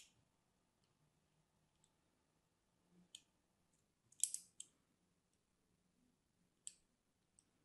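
A fine needle scoring and cutting into a bar of dry, hard soap, giving sparse crisp clicks and crackles with a louder cluster about four seconds in.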